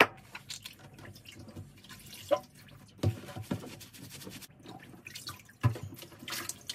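Water sloshing and dripping in a sink as a wet fencing mask is scrubbed and moved about in it, with irregular small splashes and a few sharper ones.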